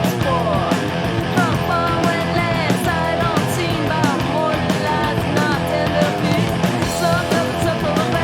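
Punk rock record playing: a full band with guitar and drums on a steady driving beat, with sliding lead lines over it.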